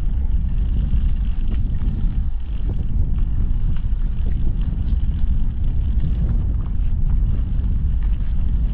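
Steady low rumble of wind buffeting the microphone and bicycle tyres rolling over a wet, uneven towpath, with a few faint clicks.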